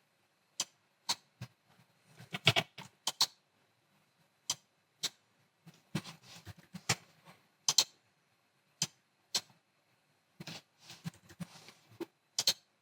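Computer mouse and keyboard clicks: scattered single sharp clicks about a second apart, with a few quick runs of taps.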